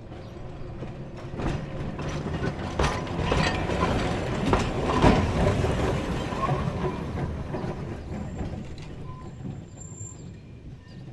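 Heritage electric tram passing by on its track, swelling to its loudest about five seconds in and then fading away, with several sharp clacks from the wheels on the rails.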